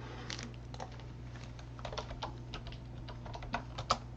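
Computer keyboard being typed on, irregular quick keystrokes, over a steady low hum.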